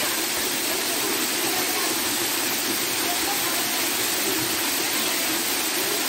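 Waterfall pouring onto rocks: a steady, even rush of falling water.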